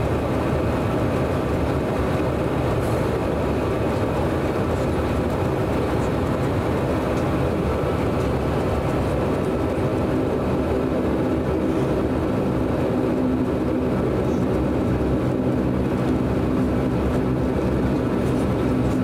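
Cabin sound of a DHC-8 Q400's Pratt & Whitney Canada PW150A turboprop and propeller during taxi, heard from a window seat beside the engine: a steady drone made of several even, unchanging tones.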